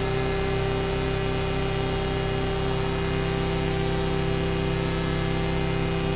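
Minimoog-style software synthesizer holding a steady buzzing drone: a low hum-like tone with a higher held note above it, under a layer of static-like hiss.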